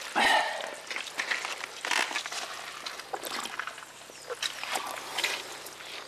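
A plastic dipper scooping water from a small rock-lined spring, with water splashing and trickling. It is loudest in the first half second as the dipper goes in, then comes in short irregular splashes.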